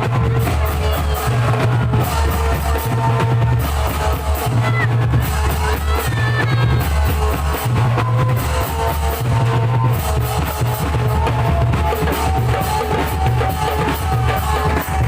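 Loud music with a steady, driving drum beat and deep bass, with held melodic tones above it.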